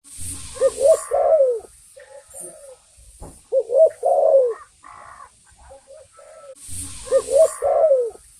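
Spotted dove cooing. Three repeated coo phrases come about three seconds apart, each a quick run of short rising notes ending in a longer falling coo, with softer coos in between.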